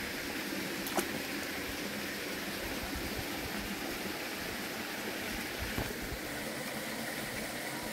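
Shallow stream water running steadily over rocks, with one sharp click about a second in.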